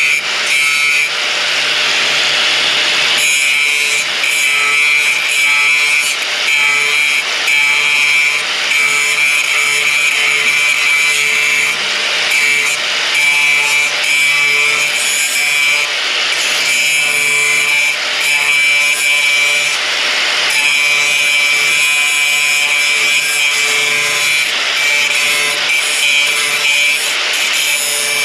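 Power saw cutting through steel, running continuously with a steady high whine, its load rising and easing every second or two.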